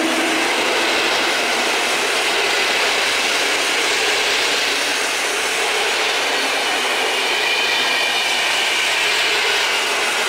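PKP Intercity passenger coaches rolling past on the track, with the steady noise of their wheels on the rails.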